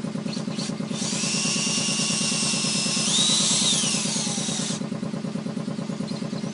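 Power drill driving a 4.7 mm screw into a tire's tread to make a test puncture. The motor whines, rises in pitch about halfway through and drops away before stopping about three-quarters of the way in, over a steady low rhythmic mechanical hum that runs on.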